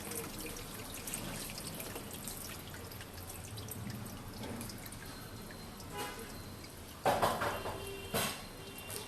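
Water dripping and splashing inside an IFB Neptune VX Plus dishwasher on its quick-wash cycle, over a steady wash of water noise, with a louder burst about seven seconds in.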